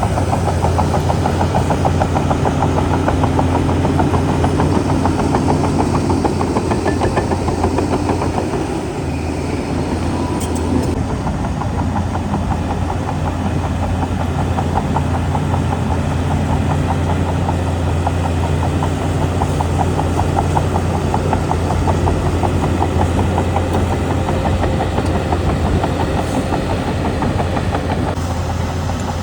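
Heavy diesel engine of earthmoving machinery running steadily under load, with a deep low hum. It eases slightly about eight seconds in.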